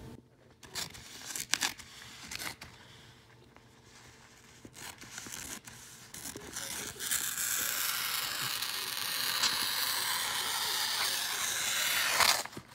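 Scissors cutting heavyweight gift wrap: a few small clicks and snips at first, then from about seven seconds in a long steady hiss of the blade gliding through the paper, ending with a sharp crackle of the paper.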